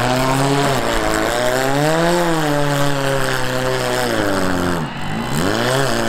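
Demolition derby car engine revving hard under load as the cars shove against each other, its pitch rising and falling several times. It drops sharply off throttle about five seconds in, then climbs again.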